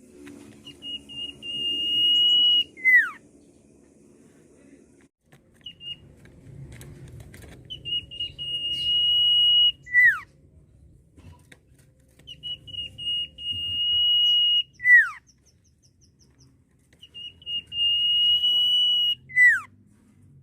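Common iora (sirtu/cipoh) singing its long whistled song: a steady, high, pure whistle held for about two seconds that ends in a quick falling note. The phrase repeats four times, about every five seconds.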